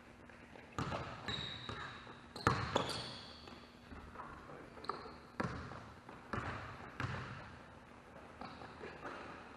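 Basketball bouncing on a hardwood gym floor in irregular single bounces, each echoing through the big hall, with short high sneaker squeaks between them.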